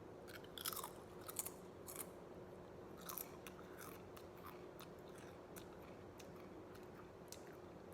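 A person biting into and chewing a crisp ketchup-flavoured potato chip. Crunches are clustered in the first three seconds or so, then soften into quieter chewing.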